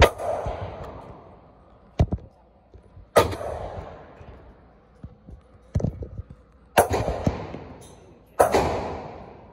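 Gunshots echoing in an indoor shooting range: four loud reports a few seconds apart, each ringing on briefly off the walls, with a couple of fainter thuds between them.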